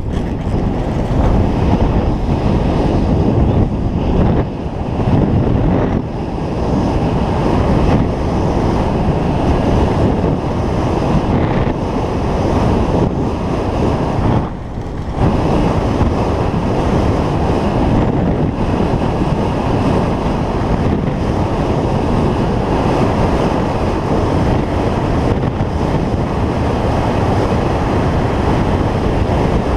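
Wind rushing over a GoPro's microphone as the skier moves downhill, mixed with skis running over packed snow. The rushing is steady and low, easing briefly twice, about four seconds in and again near fifteen seconds.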